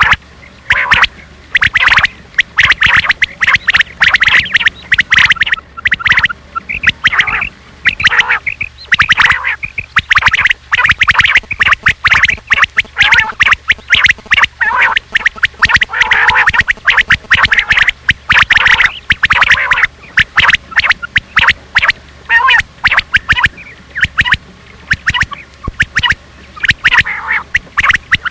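Quail (batair) calling over and over in quick runs of short, sharp notes with brief pauses, loud, from a batair lure cassette of the kind played to draw quail in for hunting.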